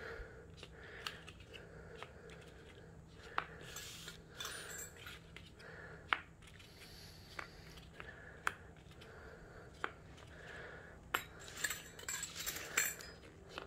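Small mounting brackets and hardware from a side skirt extension kit clicking and clinking irregularly as they are handled and sorted, with soft rustling between the sharp ticks and a cluster of louder clicks near the end.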